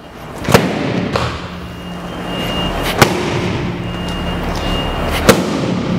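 Hand strikes slapping a handheld striking pad: three sharp smacks about two and a half seconds apart, with a lighter hit soon after the first, over a steady background hum.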